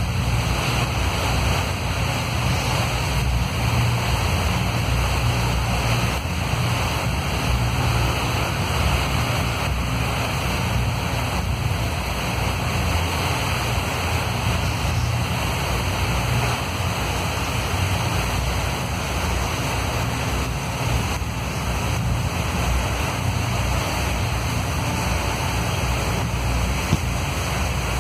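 Steady heavy rain falling, with a low rumble of wind on the microphone.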